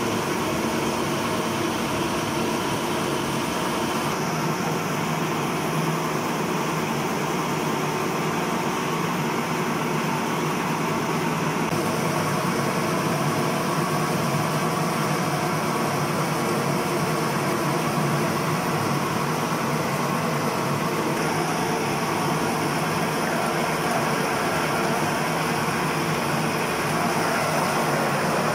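Electric grinding mill running steadily as it grinds mole paste, a constant motor hum with grinding noise.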